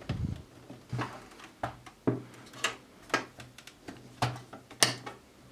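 Plastic front panel of a Samsung MM-C530D home audio unit being pressed onto its metal chassis: a string of short light clicks and knocks, about one every half second, as its retention clips snap into place.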